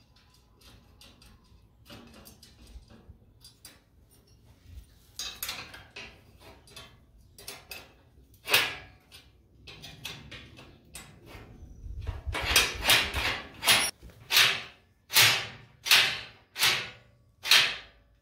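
Hand tools working steel railway switch parts: small metal clicks and clinks, then a run of about seven short, rough strokes in the second half, roughly one every 0.7 s.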